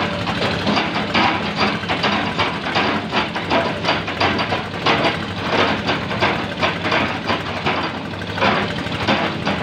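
Sunward SWE210 hydraulic excavator at work: its diesel engine runs steadily under load, with irregular sharp knocks and clanks several times a second.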